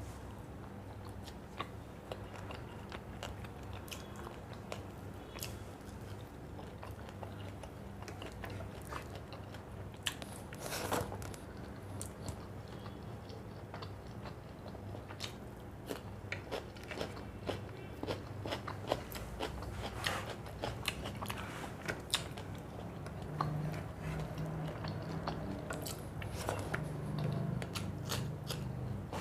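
A person chewing and biting food close to the microphone, with many short crisp crunches scattered throughout, over a steady low hum.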